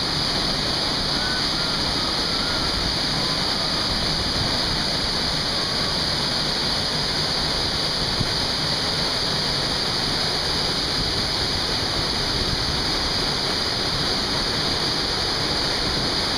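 Waterfall in a narrow rock canyon pouring into a pool: a steady rush of falling water.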